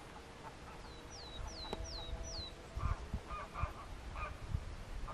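Wild geese calling: scattered honks from a flock, coming thicker from about three seconds in. Before that, four quick falling whistles from another bird.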